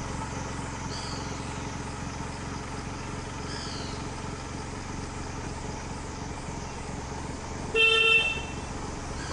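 A single short horn toot, flat in pitch and about half a second long, about eight seconds in; it is the loudest sound. Under it is a steady low hum with a couple of faint high, falling chirps.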